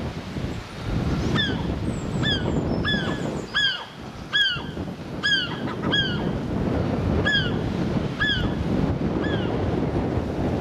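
Seagull calling: a series of about ten short squawks, each falling in pitch, roughly one a second starting about a second and a half in. Wind rumbles on the microphone underneath.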